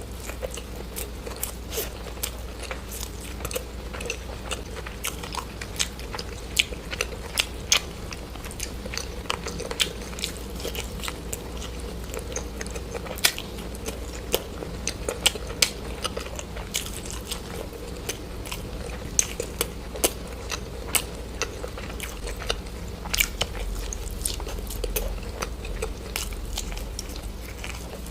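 Close-up crunchy chewing and biting: a steady run of crisp, irregular crunches, several a second.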